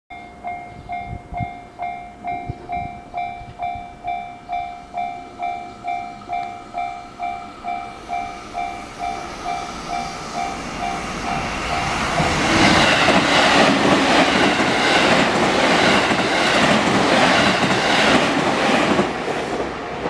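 Japanese level-crossing warning bell ringing a steady electronic ding, about two a second. From about eight seconds in, a train's noise builds up and drowns it, loud with a regular wheel clatter over the last seven seconds.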